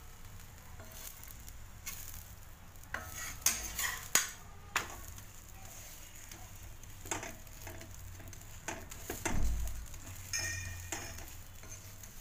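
Paratha frying in oil on a hot tawa with a faint sizzle, while a metal spatula scrapes and taps against the pan as it is slid under the paratha and pressed down. The sharp clicks come in clusters, and there is a louder knock about nine seconds in.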